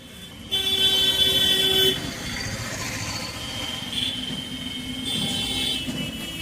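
Vehicle horns honking: one loud, steady horn blast starts about half a second in and lasts over a second, followed by fainter horn tones over a background of traffic.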